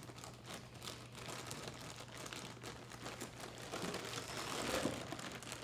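Clear plastic bag crinkling as hands open it and rummage inside for a bone cast, with irregular crackles that get busier and louder about four seconds in.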